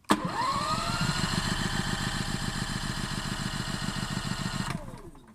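Gasoline portable generator engine starting on the first try and rising to speed within about a second, then running steadily with an even pulse. It now fires with a new spark plug boot fitted in place of the broken one. Near the end the engine winds down and stops.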